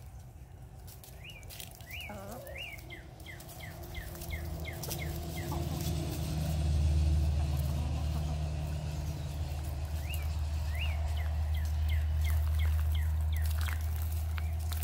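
A small bird sings two runs of quick, short chirps that fall in pitch, a few seconds apart. Under them a low rumble builds over the first several seconds and then holds steady, louder than the birdsong.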